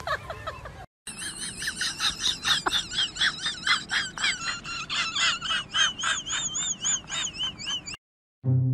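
An animal's rapid, high-pitched warbling calls, about three a second, breaking off suddenly near the end as music with held horn-like notes begins.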